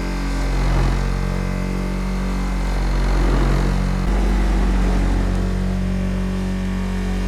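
Electric workshop power tool running steadily with a low motor hum, with rough grinding noise swelling twice as the work is pressed against it.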